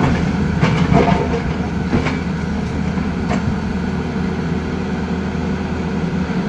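Tata Hitachi Zaxis 220 excavator's diesel engine running steadily while the machine works, with stones clacking against the bucket and each other several times in the first few seconds.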